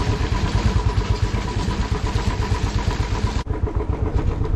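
Motorcycle engine running under way on a rough, bumpy road, with fast low pulsing throughout and a brief break about three and a half seconds in.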